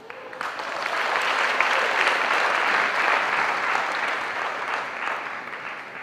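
Audience applauding: a dense clapping sound that starts suddenly, swells, then dies away near the end.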